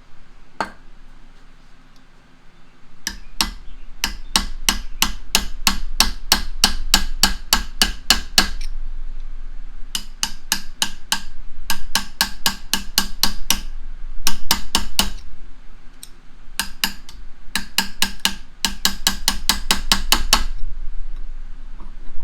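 Rapid hammer blows on a steel punch, about four a second, in runs of several seconds with short pauses between. The punch is tapping a stuck threaded collar inside an old bench vise around to unscrew it.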